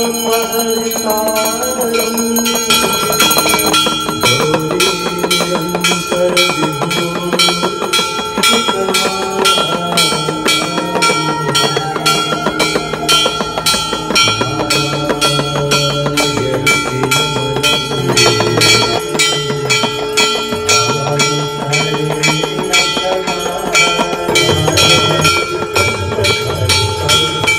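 Large hanging brass temple bell rung by hand without pause, its clapper striking several times a second over the bell's ringing tone. The strikes start about three seconds in.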